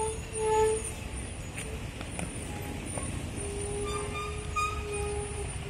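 Steady low rumble of vehicle noise, with a short pitched toot about half a second in and a longer faint steady tone from about three and a half seconds in.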